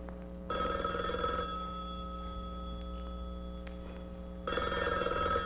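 Recorded telephone ringing over a theatre sound system, starting about half a second in and ringing again near the end.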